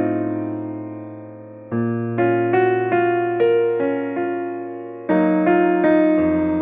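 Background music: a piano or electric piano playing a slow melody over sustained chords, with new chords struck about two seconds in and again about five seconds in.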